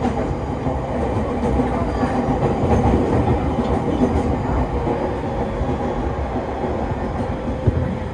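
Electric commuter train running between stations, heard from inside the car: a steady rumble of wheels on rail with a faint steady whine, and one sharp knock near the end.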